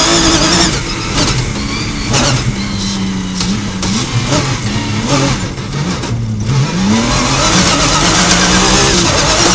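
Rally car engine heard from inside the cockpit on a dirt stage. It runs hard at first, then eases off with pitch steps and short breaks as the car slows from about 64 to 27 km/h. About seven seconds in the pitch rises and it pulls hard again.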